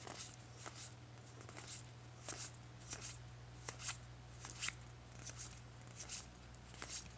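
Magic: The Gathering trading cards being flipped one at a time to the back of a small stack: a faint slide and snap about every two-thirds of a second, often as a quick double click.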